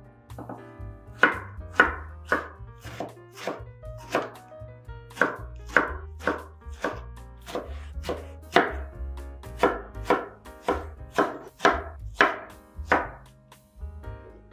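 Chef's knife dicing peeled tomatoes on a wooden cutting board: a steady run of sharp chopping strikes, about two a second, which stops shortly before the end.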